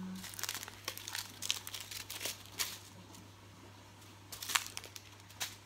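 Small plastic bags of diamond-painting drills crinkling now and then as they are picked up and sorted on a table, in a few short crackles.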